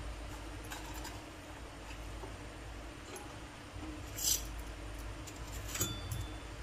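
Light taps and small clinks on a flat metal tawa as garlic pieces are dropped among the raw masala, with one short sharp clink about four seconds in and another near the end, over a low steady hum.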